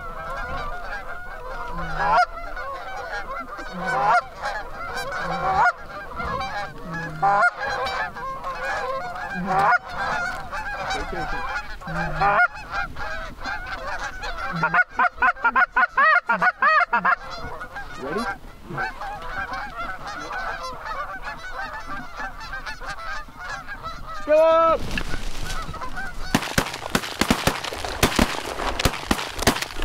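A flock of Canada geese honking, many calls overlapping without pause, with a quick run of rapid calls about halfway through. Near the end a louder rushing, flapping noise joins in as the geese lift off.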